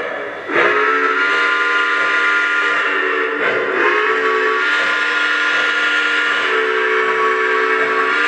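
Lionel GS-2 model steam locomotive's onboard sound system blowing a long chime steam whistle. The whistle starts about half a second in and is held as one steady, several-toned blast, with its lower notes shifting slightly a few times.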